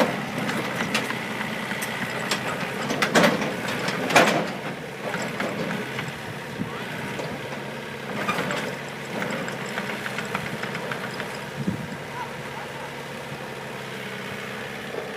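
Excavator engine running steadily, with two loud knocks about three and four seconds in.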